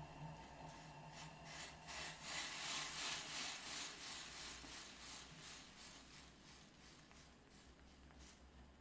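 Silicone spatula stirring and scraping round a stainless steel saucepan in repeated strokes, over the bubbling hiss of a sugar, syrup and butter mixture foaming as it comes to the boil. The hiss is loudest a few seconds in and fades toward the end.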